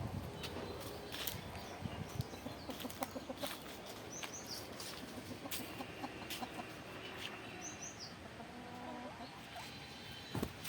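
Domestic chickens clucking in short repeated runs, with scattered sharp clicks and a few brief high chirps.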